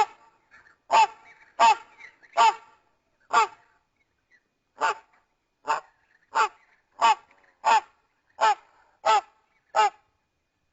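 A rapid series of thirteen short, goose-like honks, roughly two-thirds of a second apart, with a brief pause about four seconds in. This is a sound-designed Quetzalcoatlus pterosaur call built from goose honk recordings.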